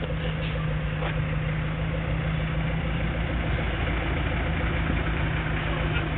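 Hot-rodded muscle car engine idling steadily, a continuous low rumble with no revs.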